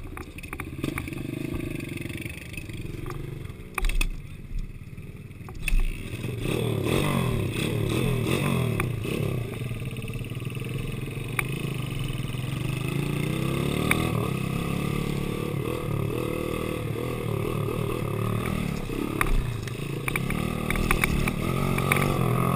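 Honda CRF dirt bike's single-cylinder four-stroke engine idling, then revving up and down through the gears as it is ridden around a dirt flat track. There are two short loud thumps about four and six seconds in.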